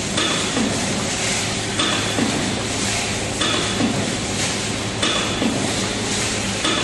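YFS-1100A aluminium foil tray press running in automatic cycles, one stroke about every 1.6 seconds. Each stroke starts with a sudden burst of noise and a short whine that glides in pitch, over a steady motor hum.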